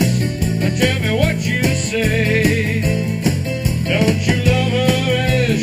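Background music with a steady beat, steady bass notes and a wavering melody line above them.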